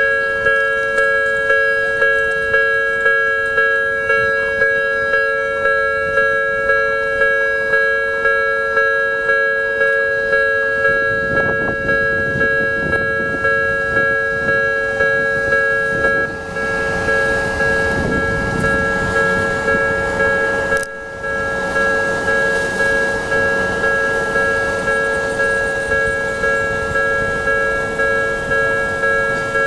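Japanese level-crossing warning bell ringing over and over at a steady quick pace, several tones together on each ding. About eleven seconds in, a passing train's rumble rises under the bell for several seconds, then fades.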